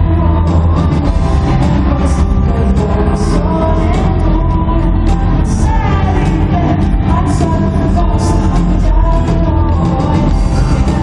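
Live pop-rock band playing loud and steady, with drums, bass, guitar and keyboards under a voice singing. It is captured on a phone's microphone from the audience, so the bass is heavy and boomy.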